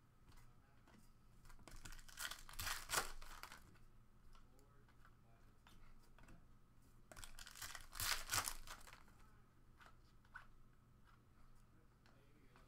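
Foil trading-card pack wrapper crinkling and tearing, in two bursts about five seconds apart, with faint rustling of cards between them.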